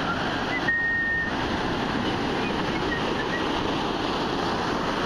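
Ocean surf breaking and washing up the sand in a steady, even rush.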